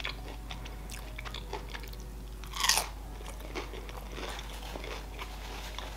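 Close-miked chewing of a crunchy tempura-fried sushi roll: small crunching clicks throughout, with one louder burst about two and a half seconds in.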